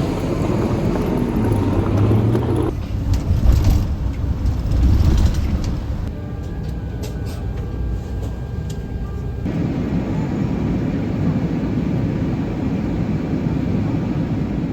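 Street traffic and city noise, heard as a run of short clips that cut abruptly from one to the next.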